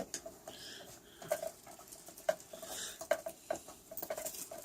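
Light, irregular clicks and taps of small objects being handled on a hard surface.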